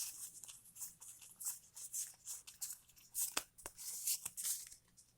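Foil wrapper of a Pokémon trading-card booster pack being torn open and crinkled, in short irregular crackles.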